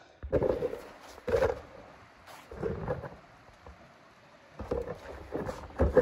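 Footsteps crunching over dry leaf litter and snow, a run of uneven steps about a second apart.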